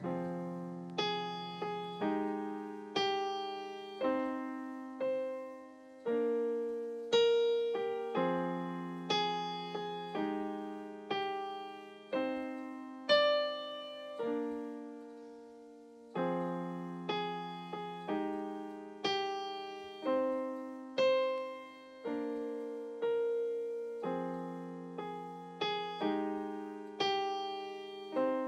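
Yamaha digital stage piano played with a piano sound in a slow instrumental passage: chords struck about once a second, each left to ring and fade.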